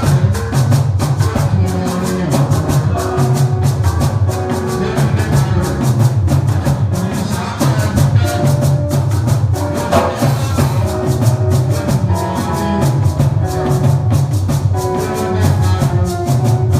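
Live band playing at a sound check: a steady beat with dense drum and percussion strikes over a strong bass line, with held melodic notes above.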